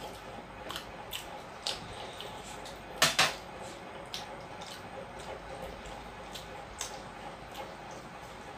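Eating by hand from brass plates: scattered light clicks, taps and wet squishes of fingers and food on the metal. About three seconds in comes a louder double clink of brass tableware, like a tumbler set down on a plate.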